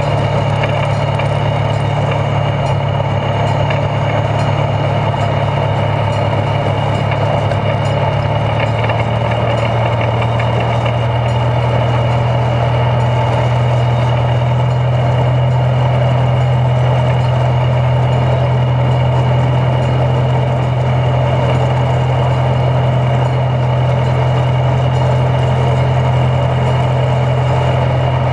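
Internal combustion engine and geared driveline of a two-foot gauge geared locomotive running steadily along the track, heard from beneath the frame: a constant low drone with a thin steady high whine above it. The drone's pitch shifts slightly about nine seconds in.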